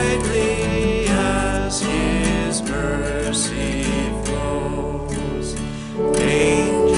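A man and a young woman singing a hymn together to a strummed acoustic guitar.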